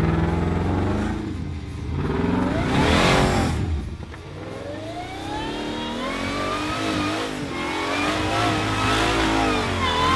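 Off-road Jeep engine revving hard, its pitch climbing and dropping several times.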